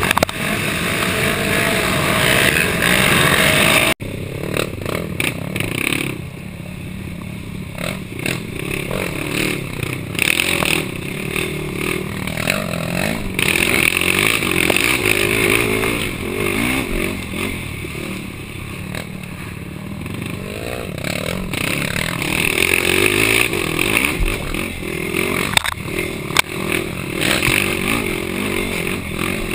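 Yamaha YFZ450 quad's single-cylinder four-stroke engine revving up and down under racing load, with clatter from rough ground. The sound drops out for an instant about four seconds in.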